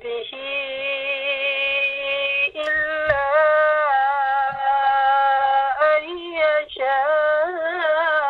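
A woman reciting the Quran in Arabic in a melodic tajweed chant. She holds long drawn-out notes, pausing for breath a few times, with a wavering ornament near the end.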